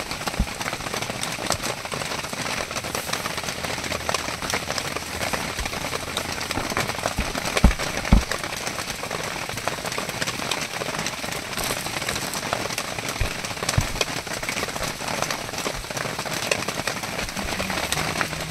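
Steady rain falling on surfaces, a continuous hiss full of small drop ticks, with a couple of dull low thumps about halfway through.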